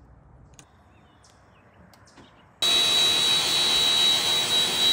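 Pressure washer spraying, starting suddenly about two and a half seconds in: a loud steady hiss of the water jet with a high whine through it, rinsing soap off a car's bodywork.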